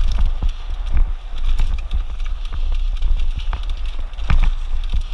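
Mountain bike riding down a rocky dirt trail: tyres crunching over dirt and stones, with a rapid, uneven run of knocks and rattles from the bike as it hits rocks, one harder knock about four seconds in. Wind rumbles steadily on the microphone.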